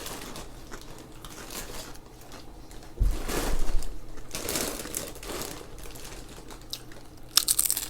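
Close-miked chewing and mouth sounds of people eating: wet clicks and small crackles. About three seconds in there is a louder rustle with a low bump, and near the end a quick run of clicks.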